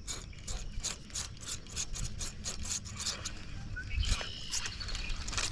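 Fishing reel being cranked to retrieve a topwater frog lure, a rapid run of ratcheting clicks, about four or five a second.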